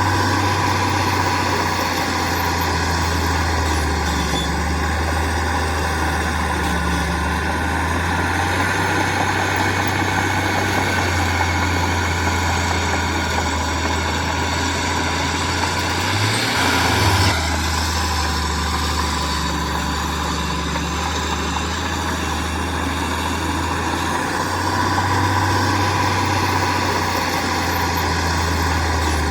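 Heavy diesel construction machinery, a bulldozer or truck, running steadily with a constant low engine drone. A brief louder burst comes a little past halfway.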